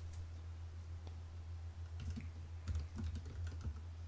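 Typing on a computer keyboard: scattered keystrokes, with a quick run of them in the second half, over a steady low hum.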